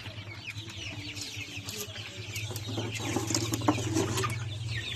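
A crowded flock of young Rhode Island Red chickens peeping and clucking, with many short falling peeps overlapping.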